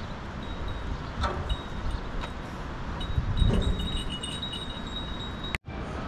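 Wind buffeting the microphone with a steady low rumble, while a faint high ringing tone comes and goes over it. The sound cuts out abruptly for an instant near the end.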